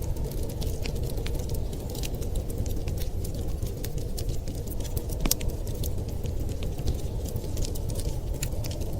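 Wood fire crackling in a fireplace: scattered sharp snaps and pops, one louder pop about five seconds in, over a steady low rumble of blizzard wind.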